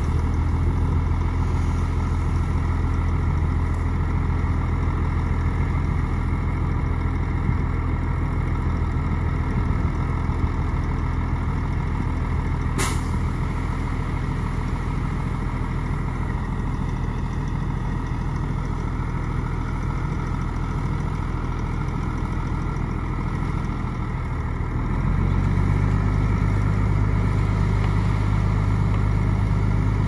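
Heavy diesel engine of earthmoving machinery running steadily under load. About 25 seconds in, it revs up a little and grows louder. There is one sharp click about halfway through.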